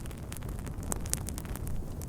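Wood fire crackling and popping: scattered sharp snaps, several a second, over a steady low rumble of burning.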